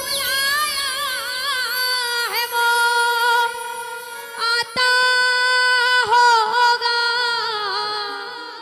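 Solo female voice singing a long, drawn-out devotional bhajan phrase, held notes sliding and wavering in pitch, fading away near the end.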